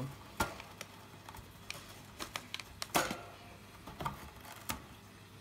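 A wire birdcage being handled: scattered light clicks and knocks of its metal bars and bottom tray, about half a dozen in all, the loudest about three seconds in.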